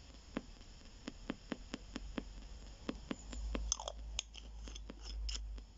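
A PSB7 spirit box sweeping the AM band through its speaker, set to a 250 ms scan rate. Faint static carries a quick steady click at each station step, about four a second, with a few louder crackles and a brief snatch of radio sound near the middle.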